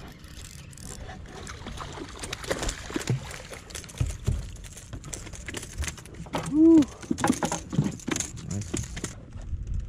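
A hooked redfish splashing and thrashing at the surface beside a fibreglass boat as it is reeled in, then knocking on the deck as it is landed, with a run of sharp knocks and clicks. A short vocal exclamation about two-thirds through.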